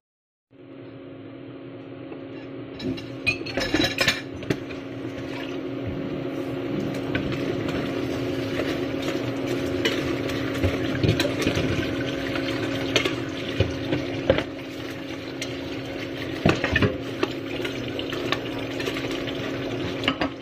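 Metal ladle stirring and turning cooked crablets in a stainless steel pot, with repeated clinks and scrapes of the utensil against the pot over a steady hum and light sizzling.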